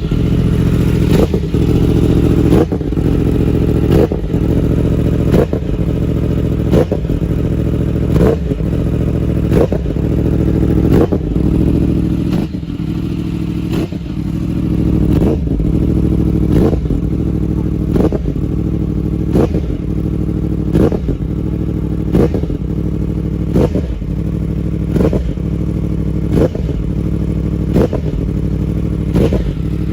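Yamaha R1M's crossplane inline-four with a full Akrapovic exhaust, running steadily, with a short sharp blip about every second and a half.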